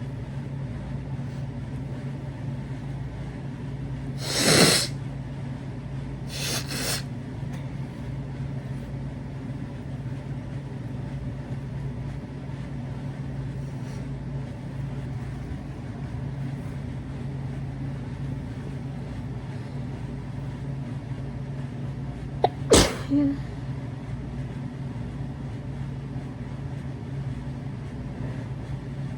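A person sneezing: one loud sneeze about four seconds in, a weaker second burst a couple of seconds later, and another short, sharp sneeze about twenty-two seconds in. A steady low hum runs underneath.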